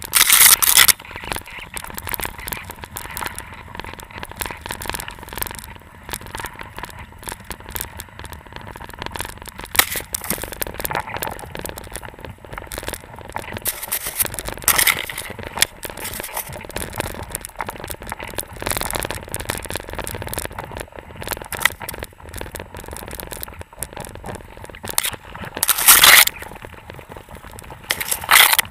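Handling noise: dense, irregular rustling, scraping and crackling from something rubbing against the covered camera and its microphone, with scattered knocks. There is a loud burst at the start and another near the end.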